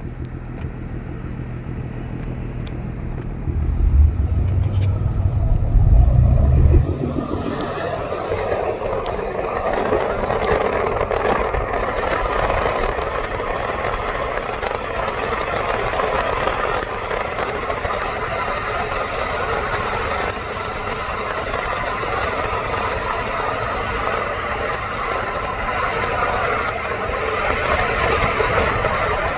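A car in motion: a low rumble of engine and road that swells over the first several seconds, then gives way about seven seconds in to a steady rushing road noise that carries on.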